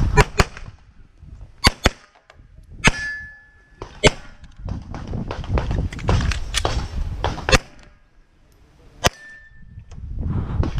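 Glock 34 9mm pistol shots fired during a practical shooting stage, some in quick pairs and some single, with pauses between them. Two shots are followed by a brief ringing tone typical of a steel target being hit. Low rumbling noise from movement and wind on the head-mounted microphone runs between the shots.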